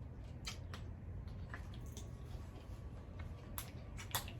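A few faint, sharp clicks and taps over a steady low background rumble.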